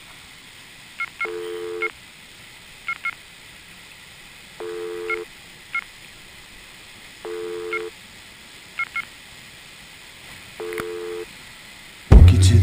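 Electronic telephone-style tones. A steady two-note beep about half a second long sounds four times, roughly three seconds apart, with short high blips in between, over faint hiss. Loud music starts abruptly near the end.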